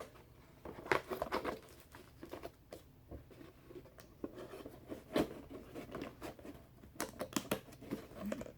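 Handling a cardboard box and its packaging: irregular rustles, light taps and clicks, with a denser cluster of clicks about seven seconds in.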